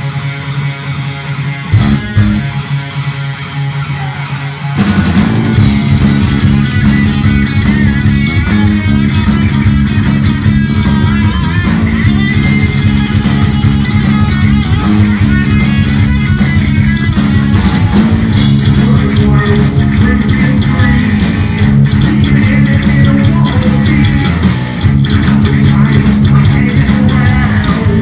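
Live heavy metal band. A distorted electric guitar leads with little deep bass under it at first, then the full band, with bass guitar and drums, comes in about five seconds in and plays on steadily.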